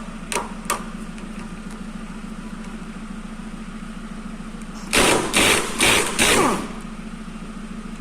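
Impact wrench loosening a 24 mm nut on a hydraulic cylinder, rattling in four short loud bursts about five seconds in; a steady low hum runs underneath, with a few light clicks near the start.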